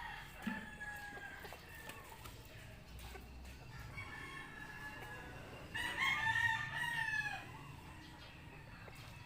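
A rooster crowing: fainter crows near the start, then a louder, drawn-out crow about six seconds in that falls away at its end.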